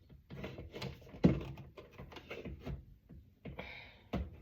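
A paint scraper used as a flathead screwdriver, working against a microwave's metal casing: a run of clicks and knocks, the loudest about a second in, with a short scrape about three and a half seconds in.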